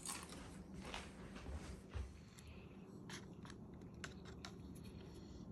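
Faint crackling and clicking of someone eating crunchy chips, a string of small sharp crunches.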